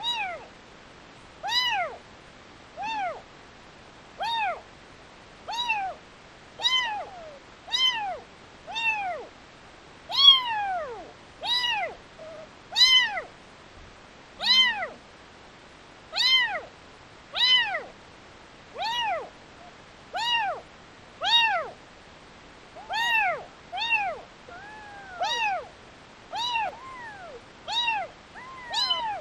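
A very young kitten meowing over and over, high-pitched cries about once a second, each rising and then falling in pitch.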